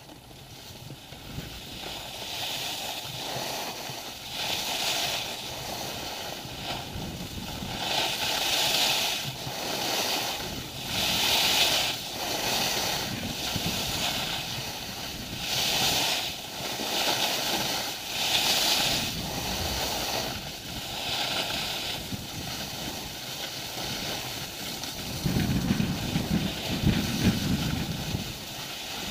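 Skis scraping and carving over packed snow on a downhill run, the hiss swelling and fading every two to three seconds, with wind rushing over the camera microphone. A heavier low wind rumble near the end.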